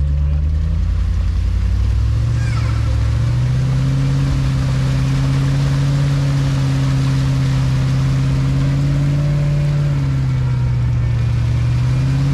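Off-road 4x4's engine revving and held at high revs as it struggles through deep mud with its wheels spinning. The revs climb about two seconds in, sag briefly near ten seconds and rise again near the end.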